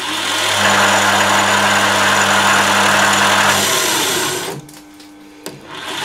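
Emco lathe's one-horsepower motor running under a half-millimetre cut: a steady motor hum with the noise of the tool cutting. About four and a half seconds in it drops to a lower, different hum as it stalls, then a click near the end and it runs up again; the owner is sure something is wrong with the motor.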